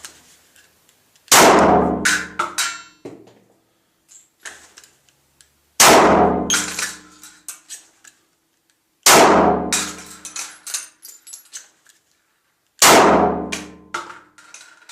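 Four 9mm pistol shots from a Glock 17, fired one at a time about three and a half seconds apart. Each shot echoes and is followed by a few small clinks.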